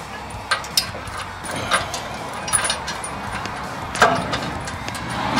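Scattered small metallic clicks and clinks as a bolt and washer are threaded in by hand against a steel brush-guard mounting bracket. A sharper metal knock comes about four seconds in.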